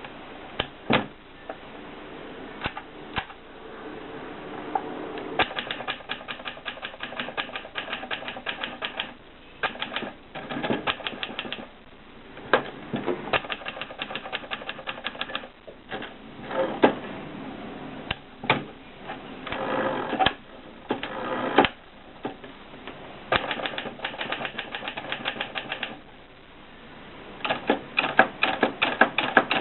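Adler Contessa typewriter being typed on: runs of quick key strikes, several a second, broken by short pauses, with an occasional louder single strike.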